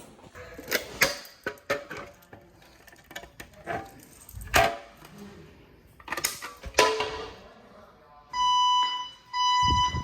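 Sharp mechanical clicks and knocks of a fire alarm pull station being handled. About eight seconds in, the fire alarm starts sounding: a steady electronic tone pulsing on and off, each beat about two-thirds of a second long.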